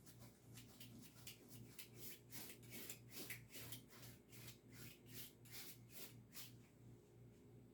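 Faint, rhythmic scratching of an acrylic-loaded paintbrush being worked back and forth on canvas, about three strokes a second, stopping about six and a half seconds in. A faint low hum runs underneath.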